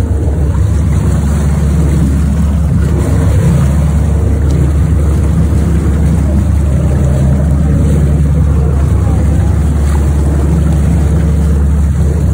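A boat's engine running steadily with a low hum, mixed with water splashing alongside the hull.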